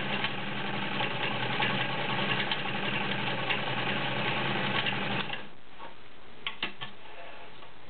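Vintage all-metal Dressmaker 7000 sewing machine running steadily, its needle going up and down in a rapid ticking rhythm as it stitches a cam pattern. It stops about five seconds in, and a few light clicks follow about a second later.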